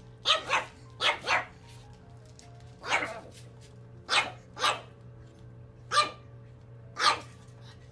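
Pug puppy barking in short, sharp yaps, about nine in all, some in quick pairs and some single.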